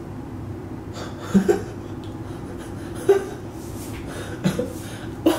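A man laughing in short bursts, about four of them spaced a second or more apart, over a steady low hum.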